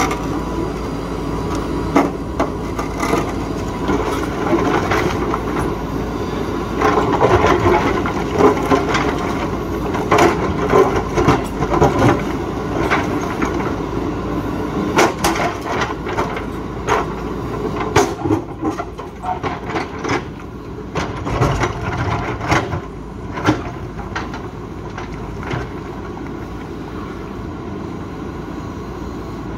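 JCB 3DX backhoe loader's diesel engine running while its bucket digs into rock, with frequent cracks, knocks and scraping of stone and metal.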